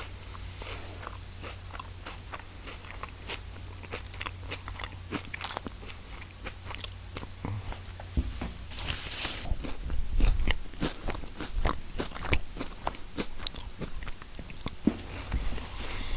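Close-up mouth chewing and biting crunchy food: a run of irregular sharp crunches, loudest about two thirds of the way through.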